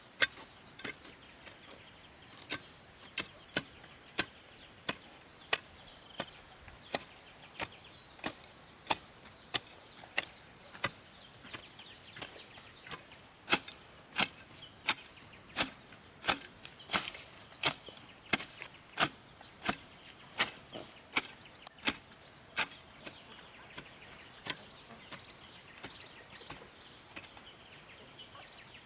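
Steady, evenly paced chopping: a blade striking wood about three times every two seconds, with the strokes hardest in the middle stretch.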